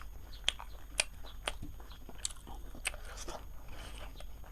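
A person chewing and biting crunchy food close to the microphone, with crisp crunches about twice a second.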